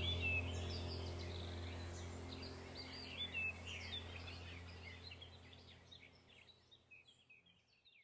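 Small birds chirping and calling over a low, steady drone, and the whole sound fades out gradually to near nothing by the end.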